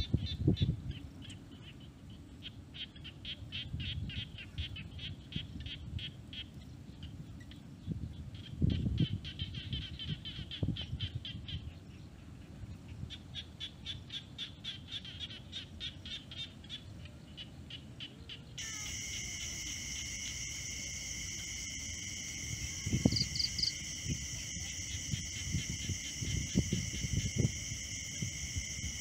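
Mice scrabbling and knocking against a plastic bucket, with short repeated trains of rapid high chirping. About two-thirds in, a steady high-pitched insect drone starts suddenly and carries on.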